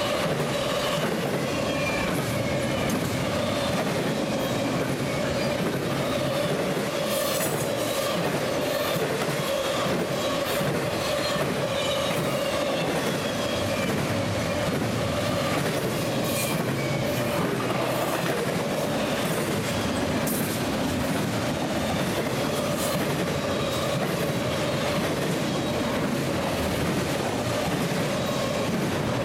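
Norfolk Southern double-stack intermodal train's well cars rolling steadily past, the wheels pounding over the interlocking's switches and rail joints with a few sharp clanks, over a steady high wheel squeal.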